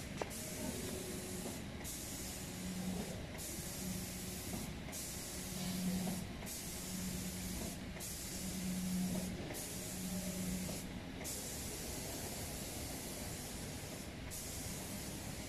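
Automatic spray painting machine's spray gun hissing as it sprays a cabinet door, the hiss cutting off briefly every second or two as the gun switches on and off along its programmed route. A low hum comes and goes beneath it.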